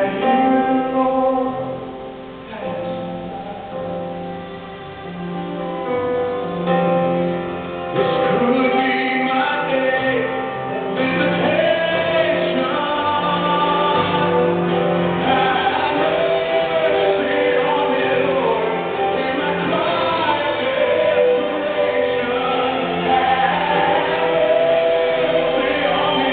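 Gospel worship song: voices singing over instrumental backing, growing fuller and louder about eight seconds in.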